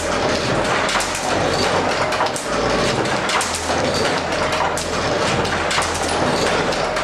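Foot-treadled printing press running, a steady clatter of knocks from its moving parts as it prints.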